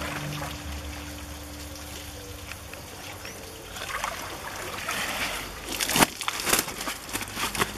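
Water sloshing in a plastic tank, then pouring and splashing as a landing net loaded with fish is hauled out. There are two sharp, loud splashes about six seconds in.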